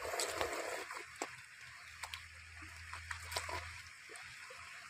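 Steady rush of a shallow stream running over stones, with scattered small clicks and taps from eating and handling food. A low hum comes in for about two seconds in the middle.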